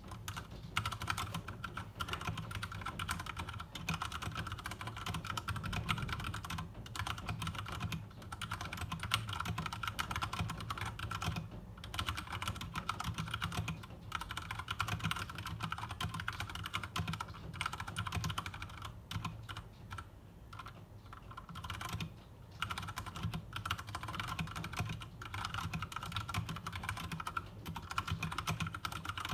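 Fast, continuous typing on an Akko 3068 compact mechanical keyboard with MX Brown tactile switches, the keystrokes clacking steadily. The typing thins out and quietens briefly about twenty seconds in, then picks up again.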